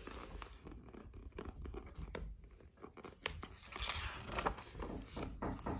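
A hardcover picture book's paper page being handled and turned by hand: a soft rustle with a few light taps and crinkles, loudest around four seconds in as the page turns over.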